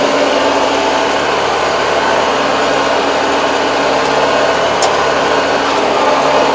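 Tractor engine running steadily, heard from inside the cab as the tractor turns at the field edge.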